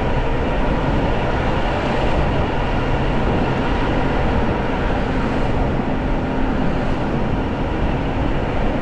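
Steady rushing, rumbling noise of a 5,000-watt electric bike being ridden along a snowy road, with a faint steady hum underneath.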